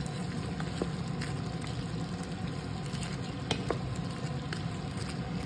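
Pork menudo simmering in a stainless steel pan with frozen bell pepper pieces just added: a steady sizzle with scattered small pops and clicks, over a low steady hum.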